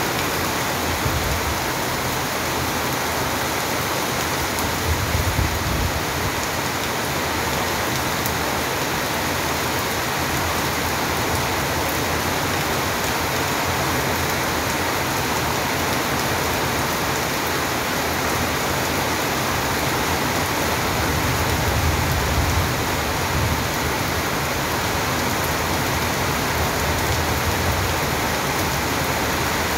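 Steady rain falling hard and evenly. A low rumble swells twice, about five seconds in and again a little past twenty seconds.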